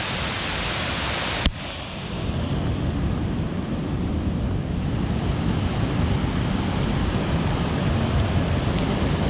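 Mountain waterfall rushing: a steady, loud wash of falling water with a deep rumble. A sharp click comes about a second and a half in, after which the low rumble grows stronger.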